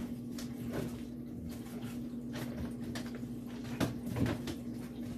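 Kitchen refrigerator door pulled open, with a couple of soft knocks about four seconds in, over a steady low hum.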